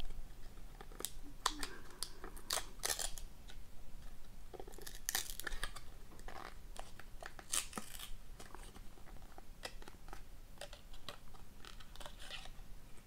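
Sealed cardboard frame of a 'Frozen in Ice' trading card being peeled and torn apart by hand, in short irregular rips and scrapes of stiff card stock. The frame is stuck fast and hard to open, and tearing it damages the back of the card.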